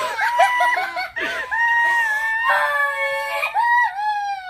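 Girls squealing and shrieking with excitement: several high-pitched voices cry out in long, held notes that overlap near the middle.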